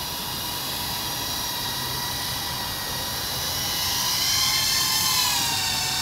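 Skydio R1 quadcopter drone's propellers whining steadily. About four seconds in, the whine rises in pitch and gets louder as the drone is flown off.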